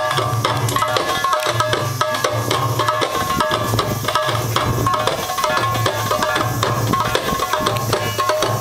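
Middle Eastern belly-dance music: hand drums, frame drums and a goblet drum, beat a steady rhythm of deep strokes, with a melody line over it.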